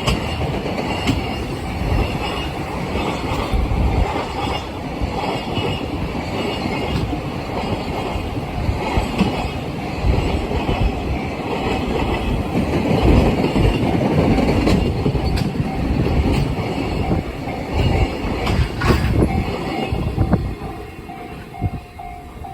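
Long freight train hauled by an EF210 electric locomotive rolling past, its wagons giving a steady rumble and clatter of wheels over the rails with some wheel squeal. The sound grows quieter about twenty seconds in.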